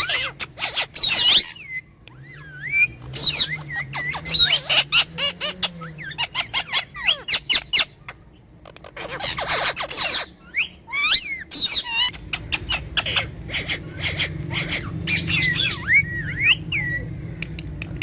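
Pet talking parrots calling: short whistled notes that slide up and down, mixed with harsh squawks, the longest about a second in and again about halfway through.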